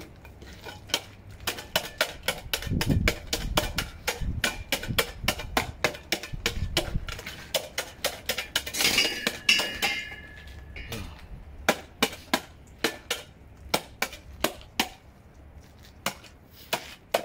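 Snow shovel chipping at a glaze of ice on pavement: a long run of sharp clinking knocks, two or three a second, with a longer screechy scrape of the blade across the ice about nine seconds in.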